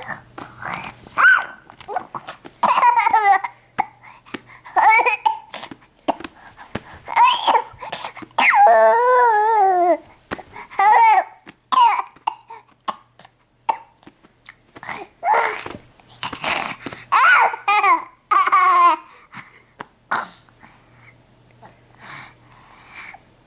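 A baby boy giving repeated short bursts of fake laughter and fake coughs, mixed with babbling. About nine seconds in there is one longer wavering vocal sound, and the bursts grow sparse and fainter near the end.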